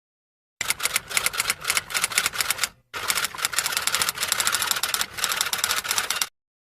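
Rapid typing: a fast run of sharp key clicks that pauses briefly a few seconds in, then resumes and cuts off suddenly.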